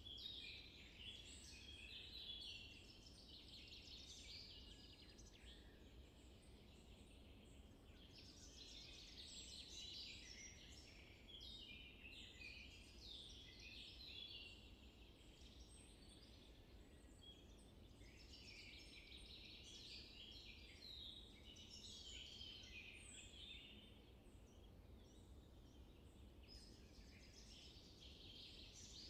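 Faint birdsong: many small birds chirping and twittering in bouts that come and go, over a low steady background noise.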